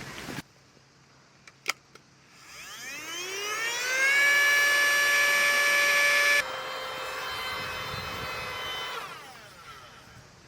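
A small electric motor spinning up with a rising whine, running steadily at full speed, then winding down with a falling pitch near the end. About six seconds in, the whine turns suddenly quieter.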